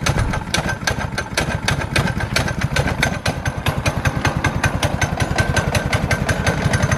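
Small pull-start gas engine in a Power Wheels Mustang, idling on choke with steady, rapid firing just after a cold start. It doesn't need the choke for long.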